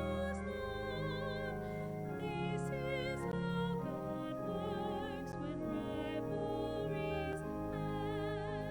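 Slow classical-style music: a melody with wide vibrato over long held low notes.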